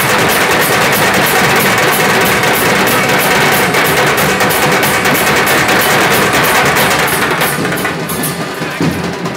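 Large drums beaten hard in a fast, even rhythm. The drumming thins out and gets quieter about seven and a half seconds in.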